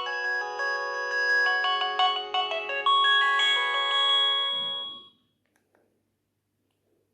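Nokia 6030 mobile phone playing one of its built-in polyphonic ringtones through its small loudspeaker: an electronic melody with several notes sounding together, which fades out and ends about five seconds in.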